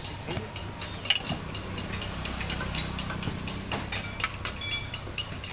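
Rapid, irregular metallic clicks and taps of hand tools working on the motorcycle's air filter housing, about four to six a second. A low steady hum sits underneath for a few seconds in the middle.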